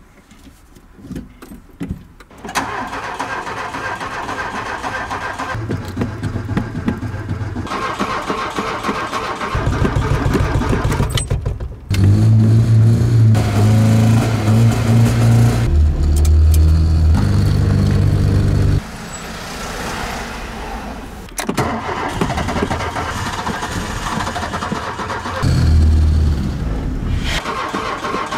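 Old Audi 80's engine being cranked over by the starter again and again while the accelerator pedal is pumped. Around the middle it catches and runs at changing revs for a while. The car is very hard to start.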